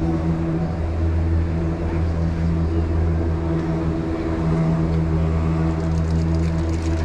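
Steady mechanical hum of the Disney Skyliner gondola lift's station drive and cable machinery, with a run of light rapid clicks near the end.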